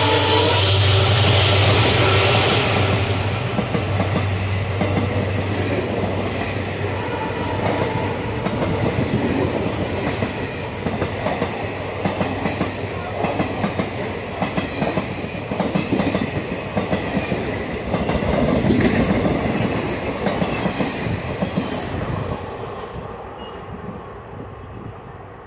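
WDP4D diesel locomotive passing at speed with its engine running, followed by a long rake of ICF passenger coaches rattling by, their wheels clicking over the rail joints. The sound fades over the last few seconds as the last coach moves away.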